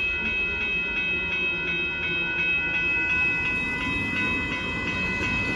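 Railroad grade-crossing warning bell ringing fast, about five strikes a second, over the low rumble of passenger rail cars passing the crossing.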